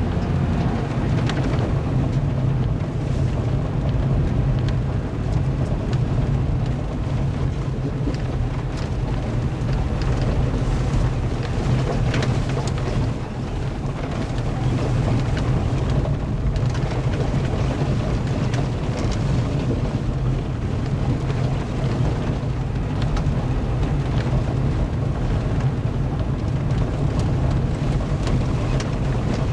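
A vehicle driving on a gravel road, heard from inside the cab: a steady low engine and tyre drone, with a running crackle and scattered small ticks from loose gravel under the tyres.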